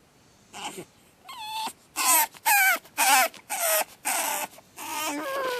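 Pug puppy screaming in its crate: a few shrill cries, then a rapid string of about five loud ones, ending in a longer cry that falls in pitch. It is the crate crying of a newly homed puppy on its second night.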